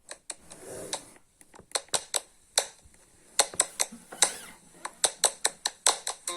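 A string of sharp, irregular clicks and taps, a couple of dozen of them, with a soft rustle about half a second in; the clicks come thicker in the second half.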